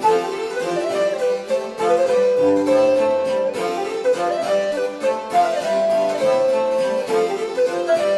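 Baroque harpsichord background music, a rapid succession of plucked notes moving up and down in running lines.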